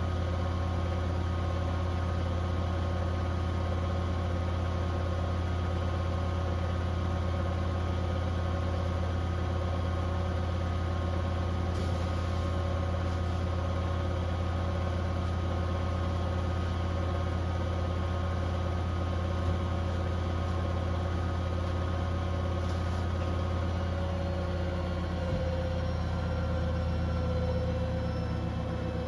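Beko WTK104121W washing machine spinning its drum in the first intermediate spin of an eco 60°C wash: a steady motor and drum hum. Near the end the pitch starts to drop slightly.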